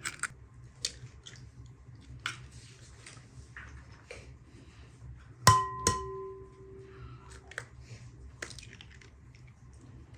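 A mixing bowl is knocked sharply about halfway through and rings for about two seconds, with a second knock right after. Small taps and clicks of kitchen handling come before and after.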